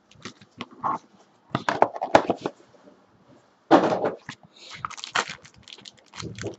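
Silver foil-wrapped trading card packs crinkling and a cardboard box being handled, in irregular bursts of rustling with sharp taps, the loudest burst a little past halfway.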